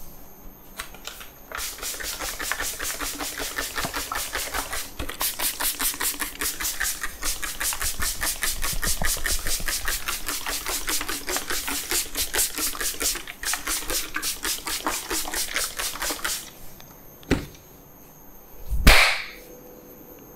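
Rapid rhythmic tapping of a barber's hands on a head during a head massage, several sharp slaps a second kept up for about fifteen seconds. It stops, followed by one sharp knock and then a louder, brief wavering sound near the end.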